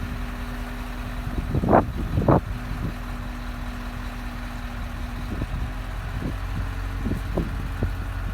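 Truck engine running steadily. Two short, sharp louder sounds come about two seconds in, and a few fainter ones follow later.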